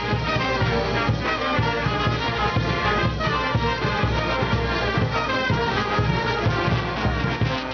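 Brass band playing live dance music: trumpets, trombones and sousaphones over a steady beat.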